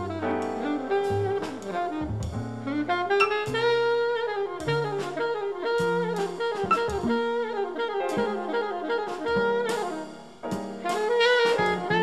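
Recording of a jazz sextet: a saxophone playing a melodic line of held and sliding notes over double bass and a drum kit with frequent cymbal strikes.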